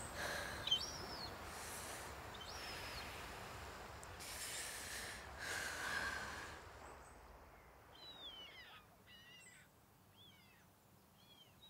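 Faint shoreline ambience: a soft surf-like wash that swells twice and fades out about two-thirds through, with birds giving short calls that slide down in pitch, several of them close together near the end.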